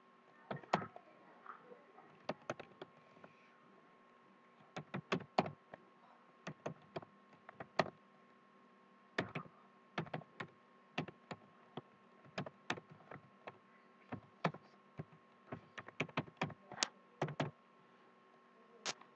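Typing on a computer keyboard: quick runs of key clicks broken by short pauses. A faint steady hum runs underneath.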